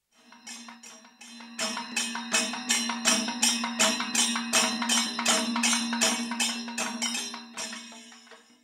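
Background music: even, rhythmic percussion strikes over a held low drone. It starts softly, swells about a second and a half in, and fades away near the end.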